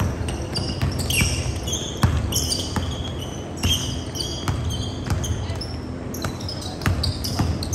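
A basketball dribbled and bouncing on a hardwood gym floor in repeated thuds, with sneakers squeaking in short high chirps as players cut and stop.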